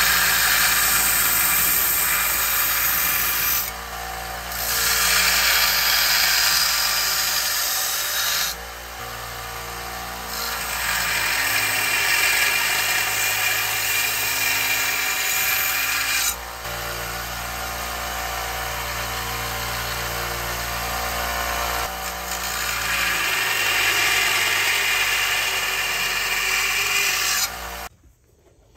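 Small belt grinder running with a railroad-spike steel blade pressed against the abrasive belt: a steady grinding hiss over the motor's hum. The grinding drops in level and picks up again a few times, and stops suddenly near the end.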